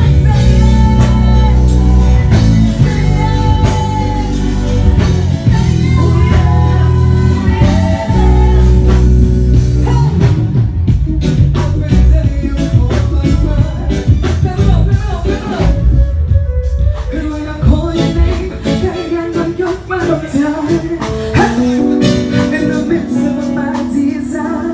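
Live band music played through a PA sound system: a singer over guitar and bass. The bass is heavy for the first ten seconds or so and thins out after.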